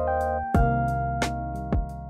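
Background music: sustained keyboard chords over a bass line with a steady beat, about two beats a second, changing chord about half a second in.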